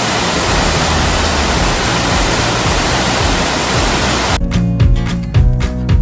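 Waterfall rushing as a loud, steady hiss of falling water that starts abruptly and cuts off about four seconds in, when background music takes over.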